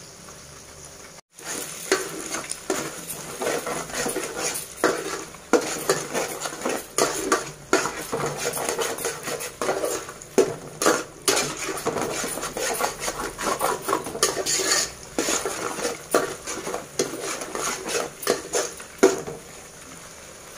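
Perforated metal spoon scraping and clinking against a metal pan, stirring and breaking up eggs that sizzle in hot oil.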